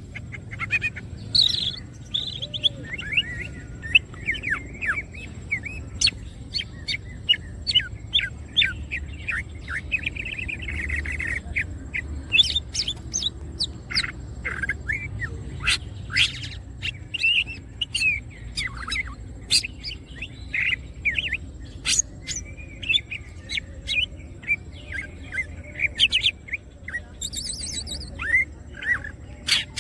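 Cucak ijo (green leafbird) in full song, a rapid, unbroken stream of sharp chirps and short whistled glides, over a low steady hum.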